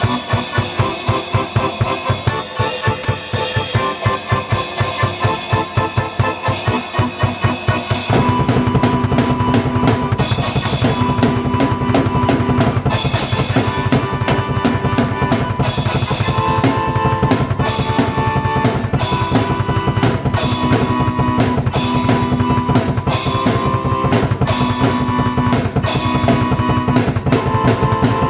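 Drum kit and keyboard played together in a fast, busy rock groove with rapid bass-drum strokes. The music grows fuller about eight seconds in, with a bass line and held keyboard notes over the drums.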